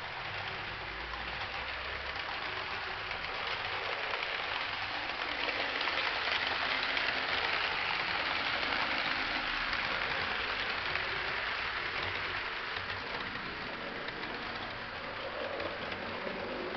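Model train running on its track: a Lima model diesel locomotive pulling Electrotren coaches, making a steady rolling rattle of wheels on rails and motor. It grows louder as the train passes close, around the middle, then eases off.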